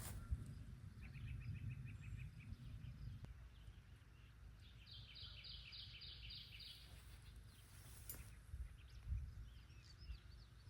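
Outdoor ambience with a low steady rumble and songbirds singing: a short rapid trill about a second in, then a clearer series of about seven quick repeated high notes around the middle.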